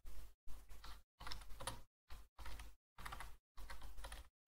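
Typing on a computer keyboard: short runs of quick keystrokes with sudden silent gaps between them.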